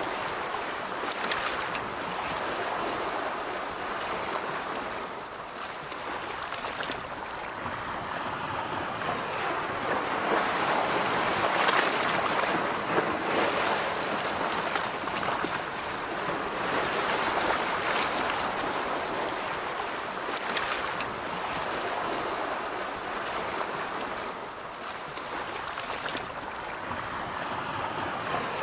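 Ocean surf washing onto a beach, a continuous rush of waves that swells and ebbs every several seconds.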